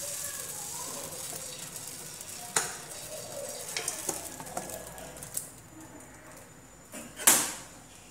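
Thin kunafa batter sizzling on a hot nonstick pan as it is squeezed out of a plastic bottle: a steady hiss that fades after about five seconds. A few light clicks, and one sharp knock near the end.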